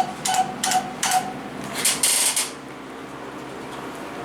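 Otis elevator car-panel chime giving four short beeps of one steady pitch in just over a second, each set off with a sharp click as a button is pushed. This is the car's odd "Morse code" chiming on button presses. A brief hissing sound follows about two seconds in.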